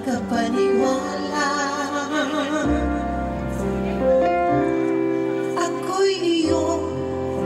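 A song playing, with a singer's voice wavering over sustained notes and held bass tones.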